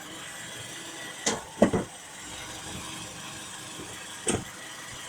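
Short knocks from a car's driveline as reverse gear is engaged: one about a second in, a louder double knock right after, and another near the end, over a steady low hum. The person listening places the knock at the driveshaft.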